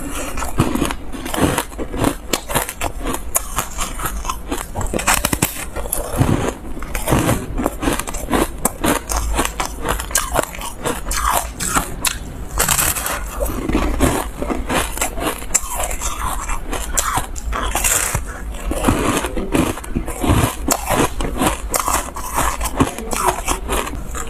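Foam ice being bitten and chewed close to a clip-on microphone: dense, irregular crisp crunches, one after another.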